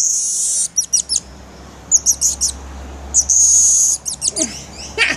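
Small monkey calling: rapid, very high-pitched chirps and twitters, with a long shrill squeal at the start and another about three seconds in.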